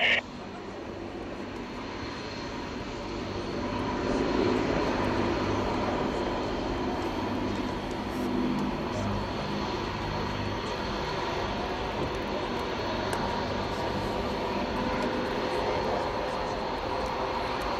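Piston engines of an Avro Lancaster bomber, four Rolls-Royce Merlin V12s, and two single-engine fighters flying past in formation, droning steadily. The drone swells over the first four seconds or so, then holds.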